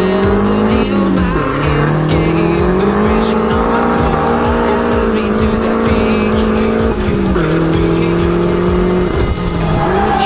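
Drift car's engine revving under load while the car slides, its pitch climbing and dropping several times, with tires squealing, heard from inside the open cabin.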